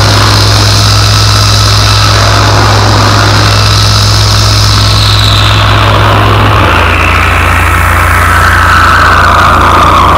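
Loud experimental electronic noise played live through a PA: a steady low drone under a hissing band that slowly slides down in pitch, the drone shifting slightly about two-thirds of the way in.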